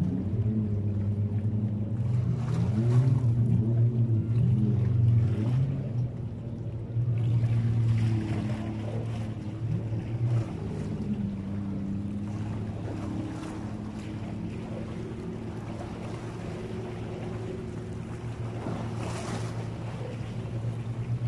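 A boat engine running steadily on the water, a low droning hum that wavers in pitch in the first few seconds, with waves and wind from the open sea.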